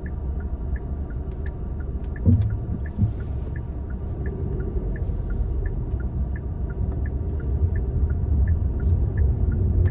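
Car cabin road and engine rumble while driving, with a steady light ticking about three times a second. Two short low thumps come a little over two seconds in and again about a second later.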